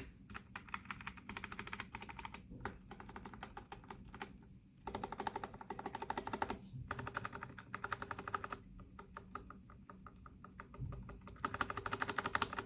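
Typing on a Keydous NJ68 mechanical keyboard with Kailh Box Brown tactile switches and PBT keycaps: quick runs of keystroke clicks in bursts. The keystrokes thin out for a few seconds near the end, then a last fast run.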